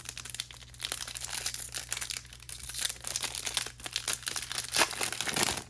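Plastic trading-card pack wrapper crinkling and tearing as the pack is ripped open, a dense run of crackles with one sharper snap near the end.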